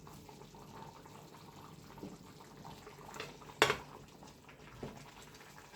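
Kitchen utensils knocking lightly against a cooking pot and dishes while food is dished up, with one sharper clink about halfway through, over a faint steady background hiss.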